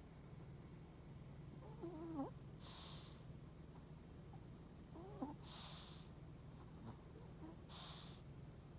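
A sleeping pet snoring faintly. Two short wavering, squeaky snore sounds come with three breathy, hissing breaths a couple of seconds apart.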